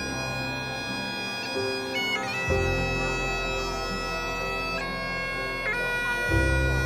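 Bagpipes playing a slow melody, each note held for a second or more over a sustained lower tone.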